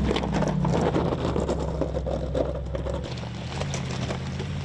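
Mercedes-Benz G-Class twin-turbo V8 running at low, steady revs as the SUV crawls over loose rock, with stones crunching and clicking under the tyres. The engine sound drops a little about three seconds in.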